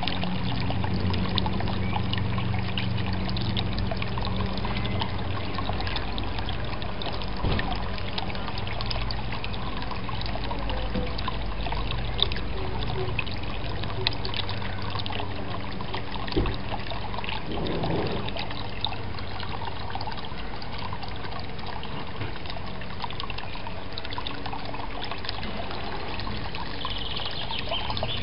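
Water trickling steadily into a garden pond, with a few light knocks in the middle.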